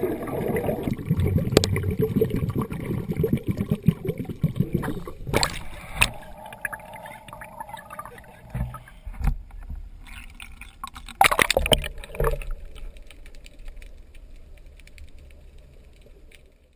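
Water bubbling and splashing heard muffled through an underwater camera's housing, dense and crackly for the first few seconds and then thinner, with a few sharp knocks partway through and again later, fading out at the end.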